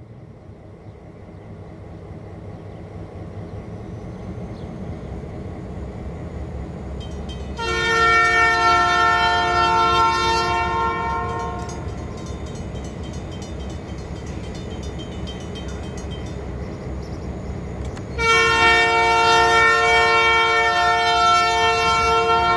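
Montana Rail Link freight train's diesel locomotives approaching with a low engine rumble that grows steadily louder. The locomotive's multi-chime air horn sounds two long blasts of a several-note chord, the first about eight seconds in and the second near the end, each lasting about four seconds and much louder than the engines.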